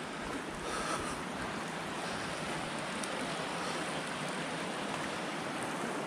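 Steady rushing of flowing water, an even hiss that does not break.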